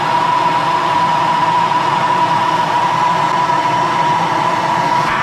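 A soldering torch burning steadily as it heats a brass and copper pipe fitting, a loud even hiss with a steady high tone running through it.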